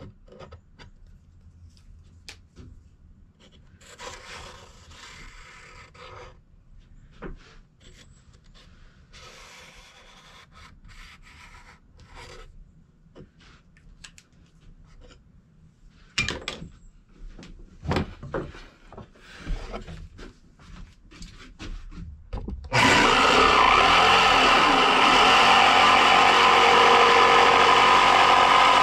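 Pencil scratching on wood as a spoon outline is traced around a template on a board, with a few light knocks from handling. Near the end an electric jigsaw starts suddenly and runs steadily, cutting into the board.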